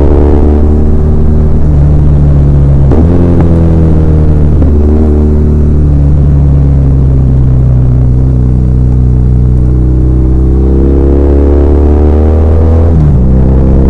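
BMW R1200R air/oil-cooled boxer twin engine running under way, its note jumping in pitch at gear changes about three seconds in, again near five seconds, and near the end. Between the shifts the pitch climbs steadily as the bike accelerates.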